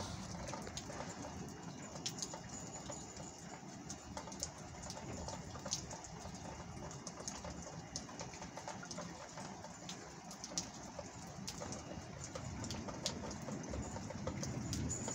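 Steady rain falling, with many separate drops ticking sharply over a soft hiss.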